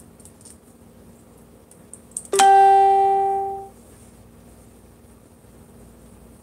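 A single ringing musical note, struck or plucked, sounds suddenly about two and a half seconds in and fades away over about a second, over a faint steady hum.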